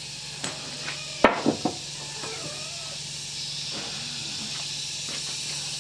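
A few sharp knocks, three close together about a second in, the first the loudest, over a steady low hum and hiss that grows brighter about three seconds in.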